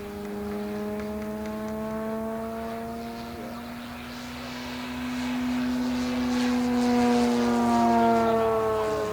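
Electric motor and propeller of a quarter-scale Spitfire model plane in flight: a steady whine that grows louder as it comes closer and drops in pitch as it passes, about eight seconds in.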